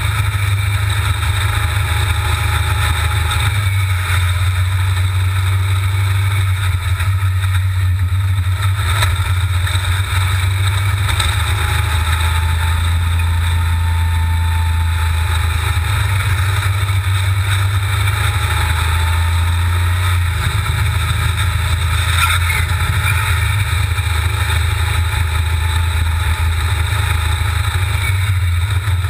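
Dune buggy's V8 engine running steadily at speed, recorded on board, with little change in revs.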